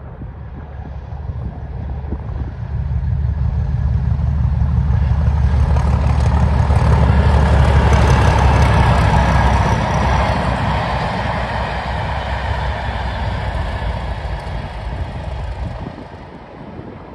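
Class 37 diesel locomotive's English Electric V12 engine working hard under power as it hauls a train past. The sound builds as it approaches, is loudest about eight seconds in, then fades as it moves away.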